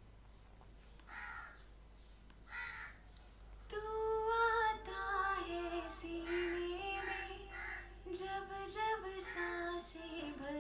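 A sung vocal recording played back through a tape delay plug-in, its words repeating as echoes. It opens with a few short hissy sounds about a second and a half apart, then the singing comes in about four seconds in.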